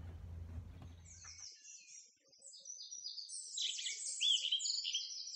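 Songbirds singing: quick, overlapping chirps and trills, coming in about a second and a half in, after a faint low room hum.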